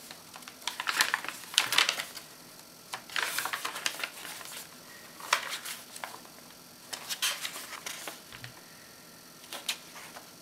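Tea-dyed parchment pages of a handmade junk journal being turned by hand, a crisp papery rustle and flap with each page, about six turns, every second or two.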